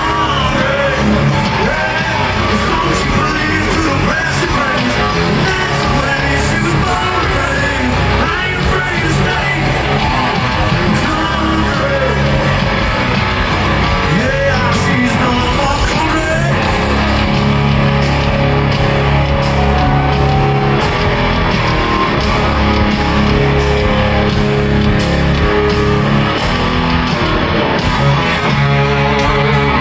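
Live country-rock band playing loudly, with electric guitars, bass and drums under a singing voice, heard from the crowd in a stadium.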